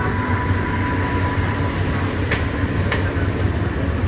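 Sprinter diesel railcar (British Rail Class 158 type) pulling out at low speed, its diesel engines running with a steady low hum. There are two sharp wheel clicks a couple of seconds in.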